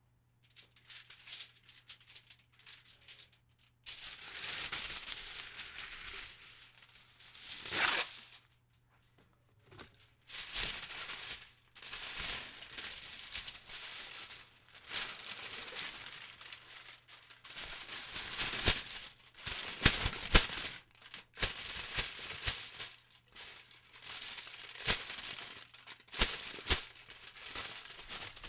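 Aluminum foil being crumpled and crinkled, in irregular bursts of crackling with short pauses between them and several sharper, louder crackles, the biggest about eight seconds in and around twenty seconds in.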